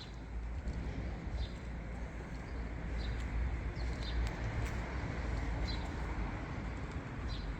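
Short, high bird chirps repeating about every second over a steady low rumble of outdoor background noise.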